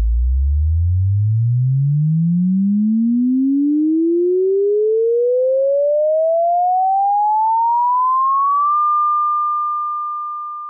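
A pure sine-wave tone sweeping steadily upward in pitch, from a deep hum to a high whistle, then holding one pitch for its last couple of seconds as it fades out. It is a frequency sweep: as the frequency rises, the pitch rises with it.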